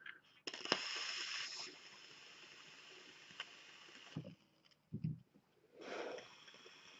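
Vaper drawing on a Proto RTA rebuildable tank atomizer: a hiss of air pulled through the airflow slots past the firing coil, strongest for about a second near the start and then fainter. Two short low puffs follow around four and five seconds in, and another hiss near the end.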